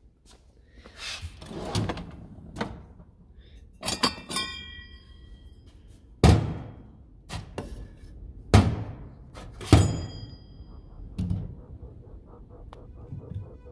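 Drawers of a stainless steel tool chest sliding and banging shut, with metal tools clinking and ringing. Three loud sharp thuds fall in the second half.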